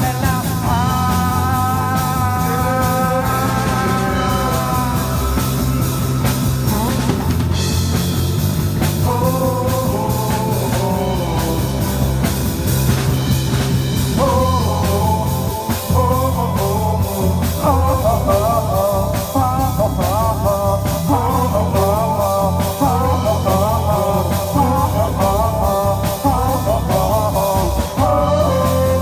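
Live rock band jamming: drum kit, bass and electric guitar, with a wavering lead line over them through the vocal microphone.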